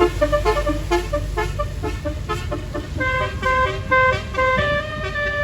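Basuri multi-tone 'telolet' air horn on a tour bus playing a melody: a quick run of short notes, then from about three seconds in longer held notes stepping between pitches. The bus engine rumbles low underneath.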